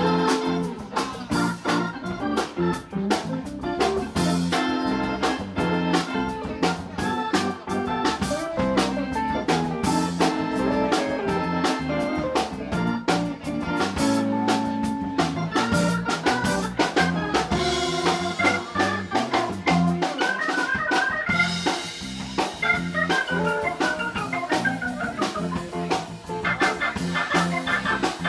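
Live organ-jazz band playing: a Hammond B-3 organ leads over electric guitar and drum kit, with fast runs of notes in the second half.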